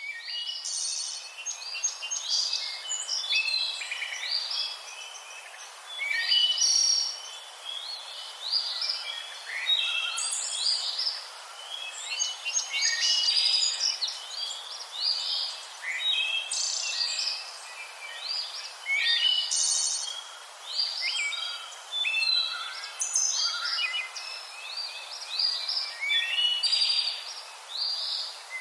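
Parrots chirping and calling continuously: a dense run of short, high chirps and squeaks over a steady hiss.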